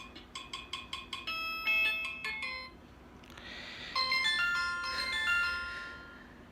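Alcatel OT 2008G mobile phone playing electronic alarm tone melodies: a quick run of short staccato notes, a pause about three seconds in, then a second melody of longer chiming notes that fades away.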